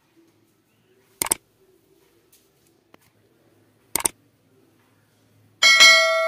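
Subscribe-button animation sound effects: two short mouse clicks, about a second in and about four seconds in, then a notification-bell chime near the end that rings for under a second and cuts off abruptly.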